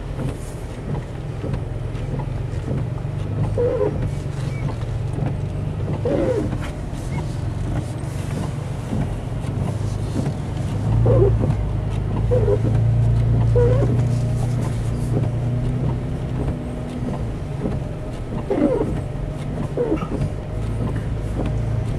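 Toyota FJ Cruiser's 4.0-litre V6 and road noise heard from inside the cabin while driving slowly on snow-covered streets, a steady low hum that swells for a few seconds about halfway through.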